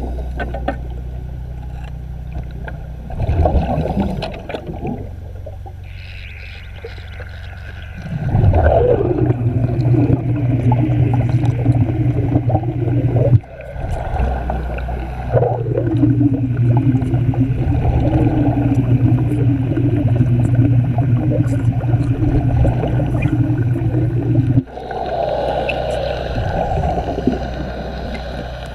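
Manual arc welding under water: a steady low electric buzz with bubbling gas from the arc's bubble. It comes in two long runs, the first starting about eight seconds in and the second after a short break near the middle, each opening with a falling sweep.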